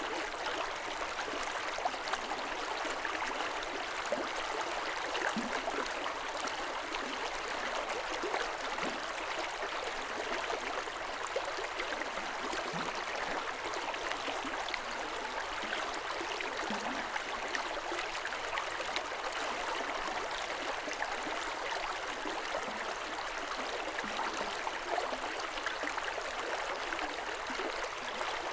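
River water running over stones, a steady babbling rush with small splashes and gurgles.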